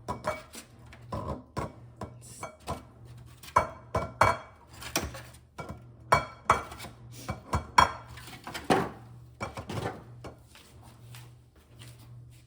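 Eggs clinking and knocking as they are set one by one into a bowl and against each other: a long string of light, sharp clinks that thins out near the end.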